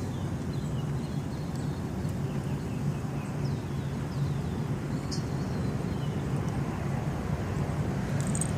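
A boat's engine running with a steady low drone, and a few faint bird chirps over it in the first few seconds.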